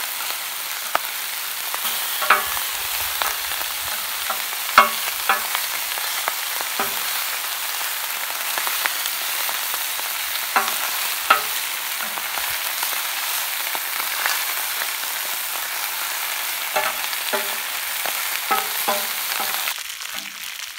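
Honey-marinated spatchcocked quail sizzling steadily on a hot plancha griddle while they are turned with metal spatulas, the blades clicking and scraping against the steel plate a dozen or so times. The sizzle cuts off suddenly near the end.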